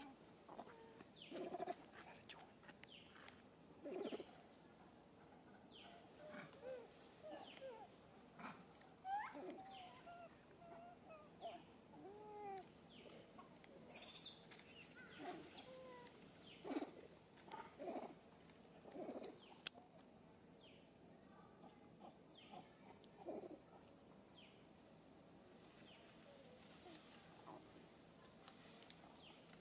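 Faint, scattered short calls from a troop of macaques, a few rising-and-falling squeaks and coos every second or two, over a steady high insect buzz.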